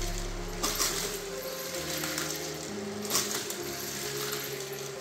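Soft background music with held notes, broken twice by a brief clatter of plastic toy pieces, once under a second in and again just past three seconds.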